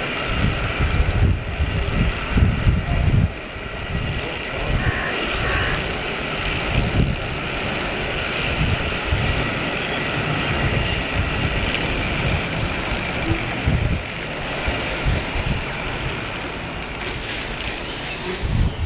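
Wind buffeting the microphone in repeated gusts over a steady rushing noise, as the cliff railway car rolls down its steep track into the lower station. A brighter hissing rush comes twice near the end, as the car pulls in.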